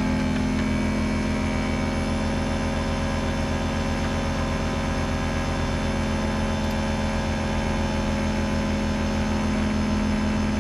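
Portable generator powering a worn-out electric air compressor, a steady running hum with a fast even pulsing underneath, while a truck tire is filled slowly through an air chuck.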